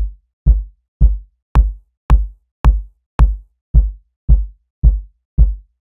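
Electronic soft kick drum sample looping, a deep thud about twice a second. From about a second and a half in to about three seconds in, a sharp click transient is layered on top of each kick, then the kicks play bare again.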